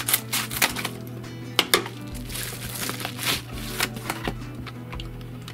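Scissors snipping through a padded paper mailer in a few quick cuts, then two sharp clicks and paper rustling as a cardboard box is slid out of the envelope. Background music plays underneath.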